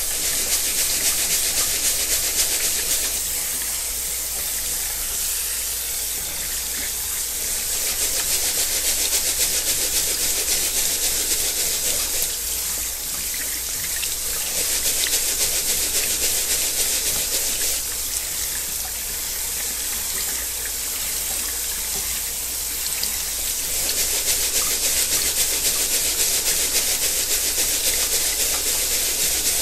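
Cold tap water running through rice in a fine-mesh strainer and splashing into a stainless steel sink, the rice being rinsed of its starch until the water runs clear. The running water swells and eases in level every few seconds.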